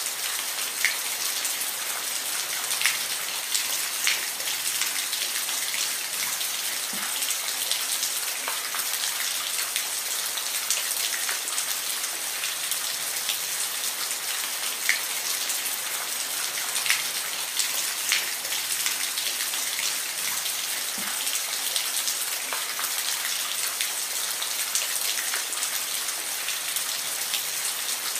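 Steady rain falling, an even hiss with scattered sharper drops ticking on a surface every second or so.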